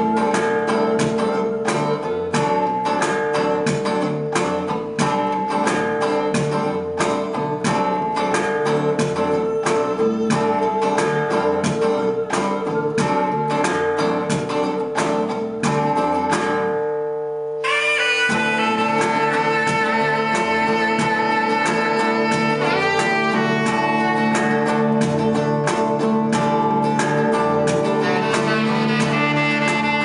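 A small band playing: quick strummed and plucked guitar over a steady held drone note. After a short dip about 17 seconds in, the music goes on as long held tones over the same drone.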